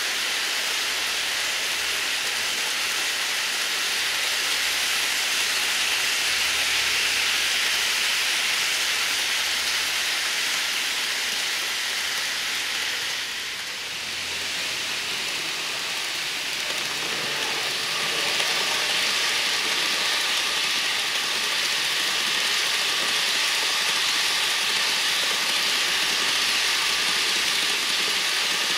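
N scale model container train rolling along the track: a steady hiss of small wheels on rail. It dips briefly about halfway, and a faint steady whine joins it later.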